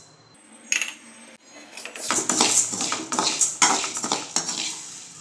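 Toor dal being roasted and stirred in a metal kadai with a metal spoon: the hard lentils rattle and click against the pan and the spoon scrapes its base. It is quiet at first, and the stirring starts about two seconds in.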